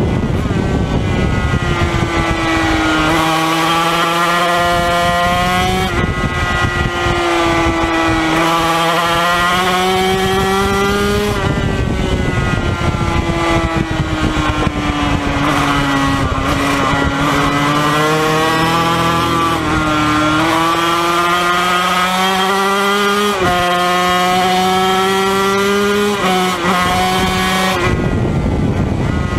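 Yamaha TZ250 two-stroke racing engine running hard, heard onboard: its pitch climbs through each gear and drops sharply at each upshift, sagging more slowly through a slower stretch near the middle, over steady wind rush.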